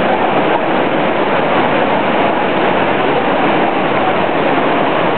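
Steady, loud background din of a busy indoor shopping area, crowd and building noise blended into a constant hubbub, with no single sound standing out.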